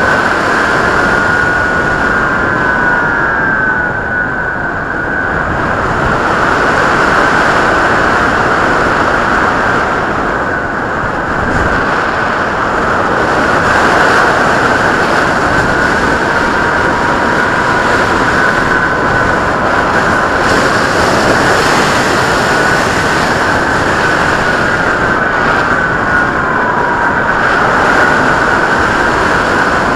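Skywalker RC plane's electric motor and propeller whining, the pitch sliding down and back up as the throttle changes, over a constant heavy rush of wind noise.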